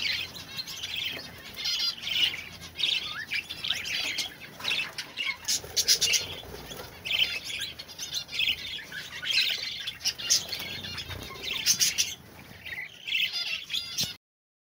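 Young budgerigars chirping in quick repeated high calls, cutting off suddenly near the end.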